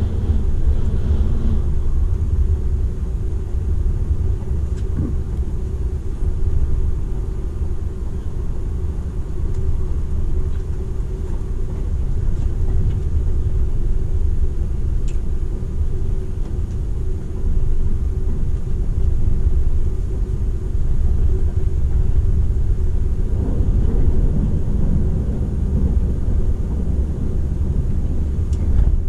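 Running noise inside the cabin of a Seibu 001 series Laview limited express travelling at speed: a steady low rumble with a constant hum over it. Right at the start a train passes close by the window, briefly adding to the noise, and the rumble grows a little louder in the last third.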